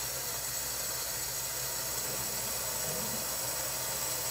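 Water rushing through freshly plumbed supply lines and a water softener's bypass valve as the main water is turned on slowly: a steady hiss as the lines fill and flush.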